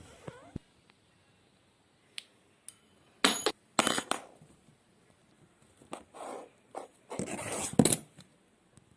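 Scattered short clinks and scraping noises in a few separate bursts, with quiet stretches between.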